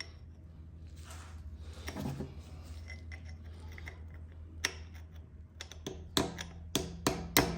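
Sharp metal clicks and taps of hand tools and sockets being handled, a few a second, starting about halfway through, over a steady low hum.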